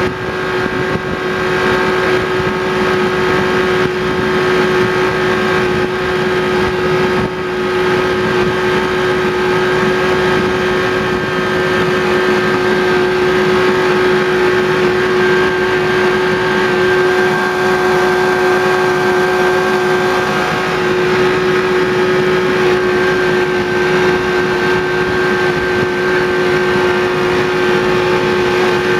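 Miniature railway locomotive running steadily under way, heard from its cab: an even engine drone with a steady hum over the running noise of the train.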